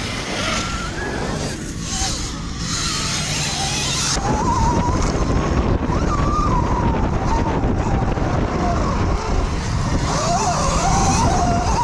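Electric dirt bike motor whining, its pitch rising and falling with the throttle, over heavy wind noise. The sound changes abruptly about four seconds in.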